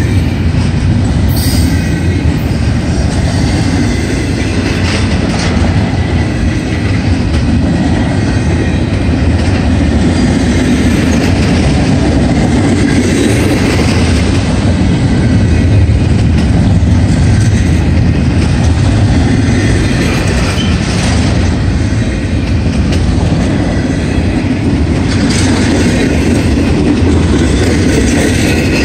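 Double-stack intermodal freight train's well cars rolling past close by: a loud, steady sound of steel wheels on rail, with the noise mostly low and a few brighter, higher stretches along the way.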